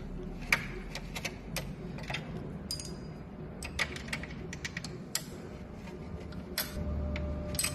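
Irregular light metallic clicks and ticks of a mounting screw being started into a treadmill motor mount by hand, with tools and metal parts knocking.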